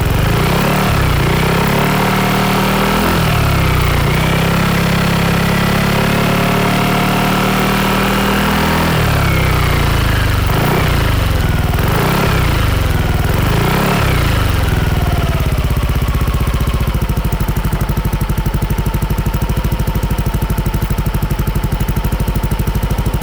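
2022 Yamaha NMAX155 scooter's single-cylinder four-stroke engine running through a BEAMS CORSA-EVO II full exhaust with a matte black silencer. It is revved up and held, then blipped about four times in quick succession, and from about two-thirds of the way through it settles back to a steady, evenly pulsing idle.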